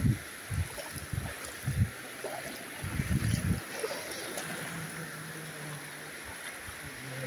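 Bare feet splashing as someone wades through ankle-deep seawater, about half a dozen heavy steps in the first three and a half seconds. After that, only the steady wash of shallow water with a faint low hum.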